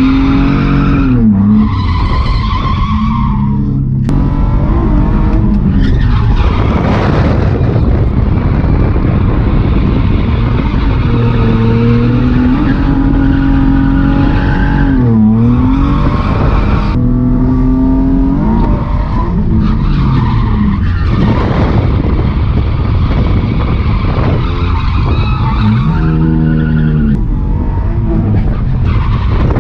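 BMW E36 325i's stock M50B25 2.5-litre straight-six through a blast-pipe exhaust, revving hard and rising and falling in pitch again and again, with several sharp drops, as the car drifts. Tyres skid along with it.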